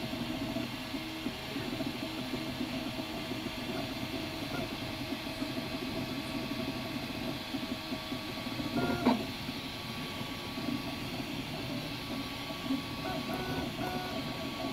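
Ultimaker 2+ 3D printer running a print: its stepper motors whir and buzz in fast, shifting tones as the print head moves, with a brief louder knock about nine seconds in.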